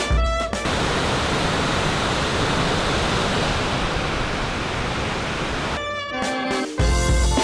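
Steady rush of water pouring over a rocky waterfall cascade, an even noise with no tones. Background music cuts out just after the start and comes back near the end.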